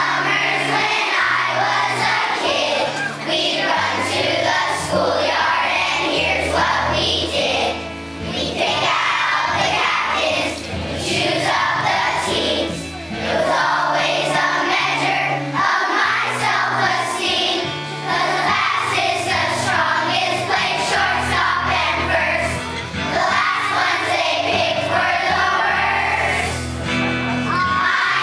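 A group of children singing together as a choir, with an instrumental accompaniment whose low bass notes change every second or so.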